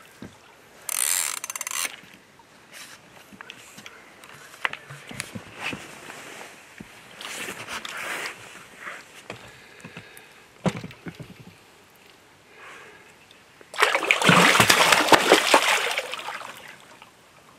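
Water splashing as a small hooked wels catfish is played and brought in, in short splashes with scattered clicks and a longer, louder stretch of splashing near the end.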